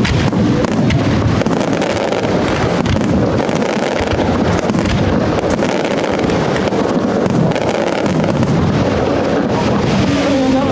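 Professional aerial fireworks display: many shells bursting in rapid, overlapping succession, making a dense, continuous crackling rattle of sharp reports with no pause.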